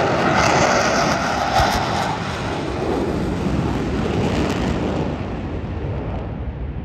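Jet engine roar from the Blue Angels' F/A-18 Super Hornets passing in diamond formation. It is loudest in the first two seconds, then settles into a lower rumble that eases toward the end.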